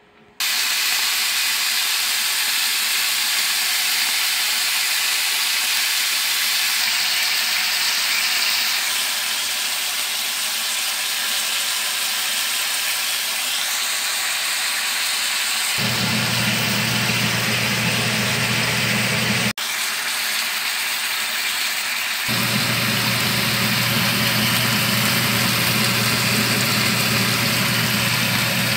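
Chicken thighs sizzling in a frying pan, a steady hiss. About halfway through, a low steady hum comes in, drops out for a few seconds, then returns.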